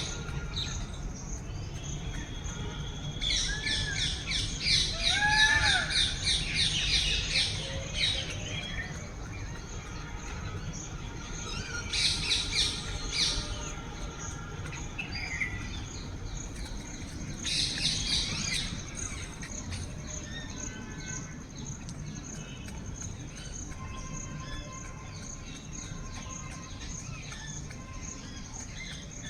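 Birds chirping in three bursts of rapid, high-pitched chatter, with a couple of short arched calls in the first burst and a steady high insect whine underneath.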